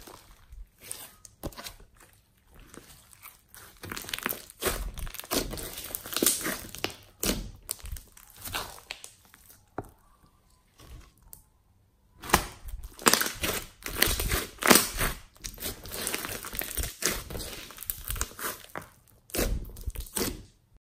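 Slime being squished, stretched and pressed by hand, giving irregular sticky clicks and crackly pops. It goes nearly quiet for a couple of seconds about halfway through, then comes back louder and denser, and stops abruptly just before the end.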